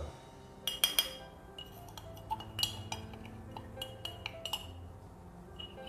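Clear blender grinder jar knocked against the rim of a stainless-steel mesh sieve to shake out powdered sugar, making a series of light, irregular clinks.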